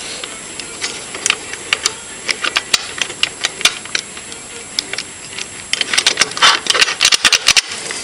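Irregular clicks and light knocks of a WordLock 5-dial combination padlock being handled: its dials turning and the lock body knocking against the metal door latch. The clicks come thicker from about six seconds in until near the end.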